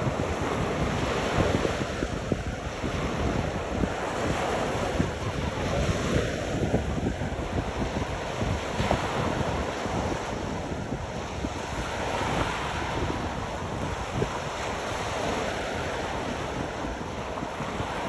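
Ocean waves washing onto a beach in a steady hiss, with wind rumbling on the microphone.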